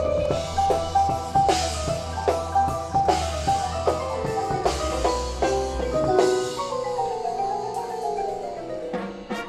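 Marching band music led by the front ensemble's mallet percussion (marimba, xylophone) with drums, striking notes in a steady pulse over a low sustained bass. The bass drops out about six seconds in and a falling run of notes follows.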